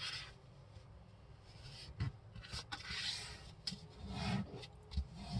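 A sheet of printer paper being folded by hand: soft rustling and rubbing as a corner is brought to the center crease and smoothed flat, with a few short crackles of the paper.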